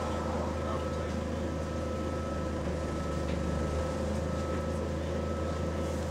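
Bus engine idling steadily, heard from inside the passenger saloon: a low drone with a steady thin whine over it that stops near the end.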